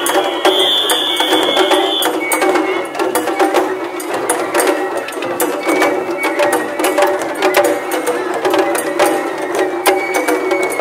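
Japanese festival float music (matsuri-bayashi): drums and other percussion beating a quick, steady rhythm, with a high held note during the first two seconds.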